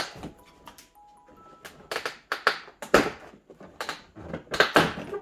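Stiff clear plastic packaging crinkling and crackling as it is handled and pulled out of a box. A string of irregular crackles, loudest about three seconds in and again near the end.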